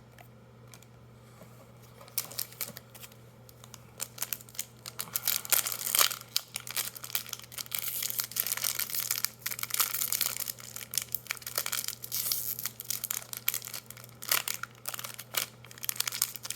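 Foil wrapper of a Magic: The Gathering booster pack crinkling and tearing as it is worked open by hand. The crinkling starts about two seconds in and grows louder from about five seconds in.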